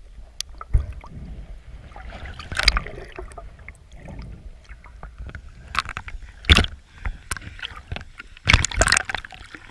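Water splashing and sloshing in irregular bursts, with a few sharp knocks among them, from gill-net fishing in a river.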